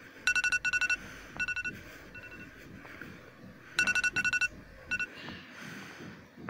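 Electronic wake-up alarm going off: clusters of rapid, high beeps, a pause, then more clusters, stopping about five seconds in.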